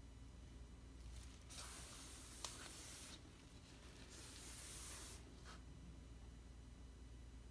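Faint scraping swishes of a spatula dragged through thick cold process soap batter as the loaf's top is textured. There are two strokes, about a second and a half and about a second long, with a small click during the first.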